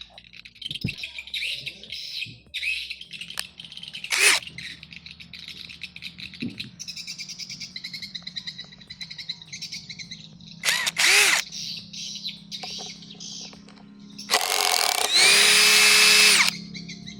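Cordless impact driver's motor spinning up in two brief trigger pulls, then running free at steady speed for about two seconds near the end, without hammering. Birds chirp throughout.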